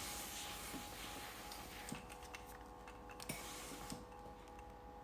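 Soft steam hiss from a Tefal IXEO steam iron on a low steam setting, fading out about two seconds in, returning briefly and fading again, with a few light clicks and a faint steady hum.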